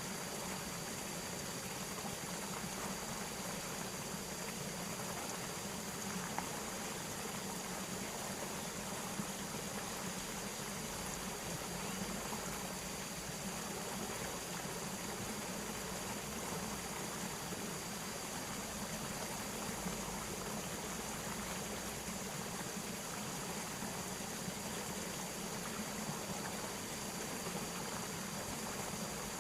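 Steady rush of flowing water, even and unbroken, with a thin steady high tone running through it.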